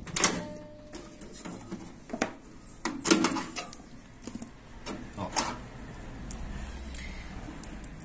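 Scattered clicks, knocks and scrapes of a screwdriver and hard plastic as a door interlock microswitch is worked loose from its mount inside a microwave oven. The sharpest knocks come about three seconds in and again a little after five seconds.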